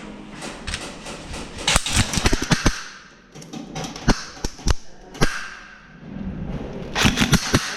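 Airsoft guns firing in short bursts of sharp snaps: a cluster about two seconds in, scattered shots around four to five seconds, and another burst near the end.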